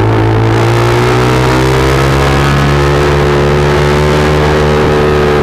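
Motorcycle engine running through an SC Project aftermarket muffler while riding at fairly steady throttle. Its note eases slightly lower through the middle, with rushing wind and road noise underneath.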